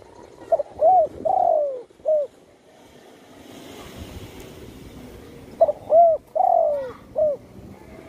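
Spotted dove cooing: two song phrases of four coos each, about five seconds apart. In each phrase the third coo is the longest and falls in pitch.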